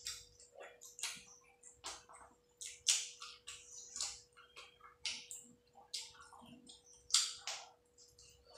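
Close-up wet chewing and lip-smacking of a mouthful of rice and curry being eaten: irregular moist clicks and smacks, one or two a second, with the loudest near 3 s and 7 s. A faint steady hum runs underneath.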